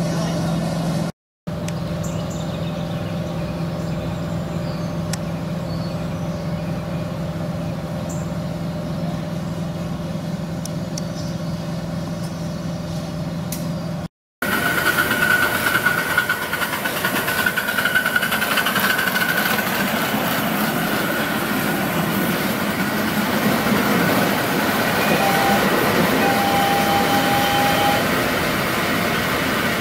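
5-inch gauge 0-6-2 Metre Maid live steam locomotive in steam, first with a steady hum, then, after a cut about halfway through, a louder and rougher sound as it runs along the track.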